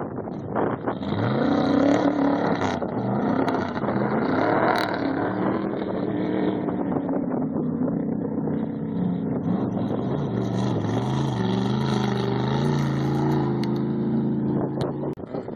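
Off-road race vehicle engines running hard at speed, the pitch climbing as one revs up about a second in, with another engine note strong in the second half that drops away just before the end.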